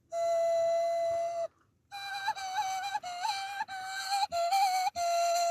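A kaval-like melody whistled with the thumb held to the lips, no instrument: one long held note, a short break, then a tune of short notes with quick turns.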